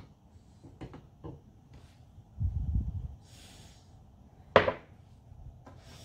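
Light clicks and handling as a coffee cup is slid out from under a Nespresso machine's spout and set down on the counter, with one sharp knock a little over four and a half seconds in.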